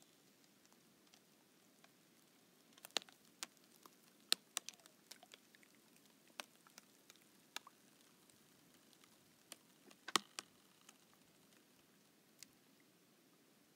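Thin, thawing lake ice crackling as it shifts: scattered sharp clicks and pops, with a quick run of them a few seconds in and a louder double pop about ten seconds in.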